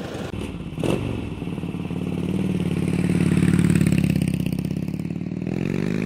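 Harley-Davidson Twin Cooled High Output 103 cubic inch V-twin motorcycle engine running, building in level and then revving up near the end.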